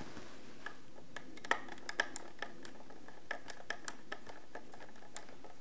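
Small screwdriver driving a tiny screw into the plastic housing of a SimpliSafe base station to fasten its cellular module: scattered faint, irregular clicks and scratches of the tip on the screw and plastic.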